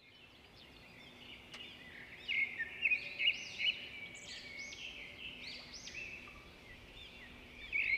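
Birds chirping: quick, repeated rising-and-falling notes, faint at first and clearer from about two seconds in, with a short lull before they pick up again near the end.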